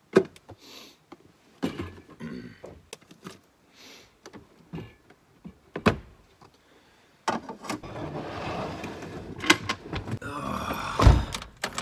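Scattered clinks and knocks of dishes and camp gear being handled and put away, then a stretch of denser rustling and scraping with one heavy thump near the end.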